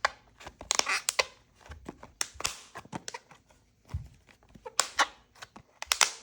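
Plastic slime container being handled and its lid worked at by hand: an irregular run of sharp clicks and short crackles, with a dull thump about four seconds in.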